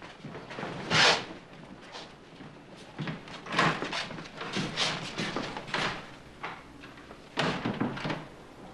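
Footsteps on a wooden floor, about two a second, with a louder knock or scrape about a second in and a wooden door being opened and shut near the end.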